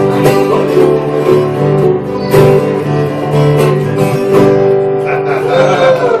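Small acoustic band playing a Hawaiian song: acoustic guitars and a ukulele strumming a steady rhythm over a bass line. A voice comes in near the end.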